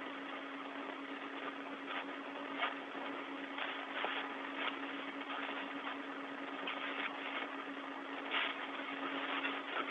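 Open space-to-ground radio channel with no one talking: a steady hiss with a low hum, broken by a few short crackles.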